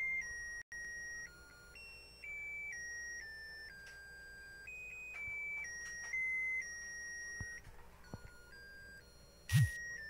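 Simple electronic melody of single beeping notes, one at a time, changing pitch about every half second, like a ringtone tune. A brief dropout in the sound near the start, and a short thump near the end.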